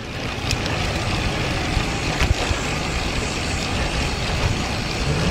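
Steady rush of wind on a GoPro action camera's microphone while riding a road bicycle, building over the first half second, with a couple of faint ticks.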